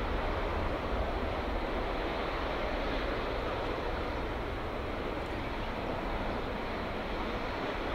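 Jet engine noise of a Boeing 777-200ER with Rolls-Royce Trent engines after takeoff, a steady rushing roar that slowly fades as the aircraft climbs away.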